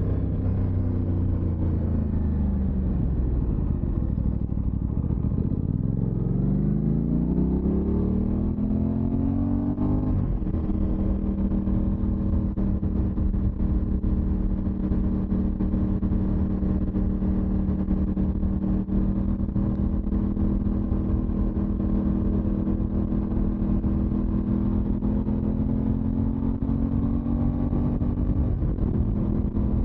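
Aprilia motorcycle engine under way. It slows for a few seconds, then pulls up through the revs and changes gear about ten seconds in. After that it holds a steady cruise, with a small change in pitch near the end.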